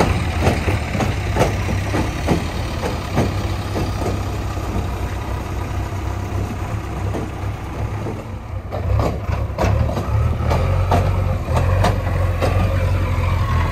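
JCB 3DX backhoe loader's diesel engine running with a steady low note, with repeated clanks and rattles over it. The engine sound grows louder about two-thirds of the way in.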